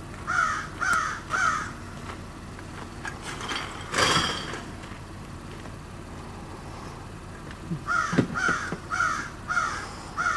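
A crow cawing: three harsh caws just after the start, then a run of five near the end. About four seconds in, a short loud noisy burst.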